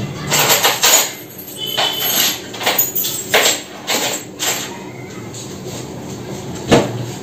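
Small bottles and containers on a wooden shelf being picked up and set back down as it is dusted by hand with a cloth: a string of light knocks and clatters, with one sharper knock near the end.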